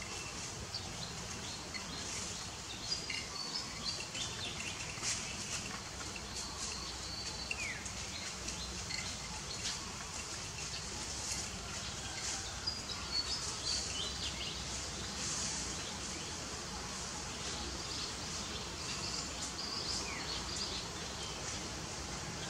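Outdoor ambience: a steady hiss of background noise with scattered short, high chirps throughout and a couple of brief falling calls.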